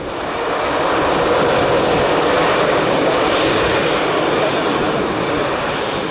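Airbus A319 corporate jet's twin jet engines on final approach: a steady, loud rush of engine noise that fades in over the first second, then holds level.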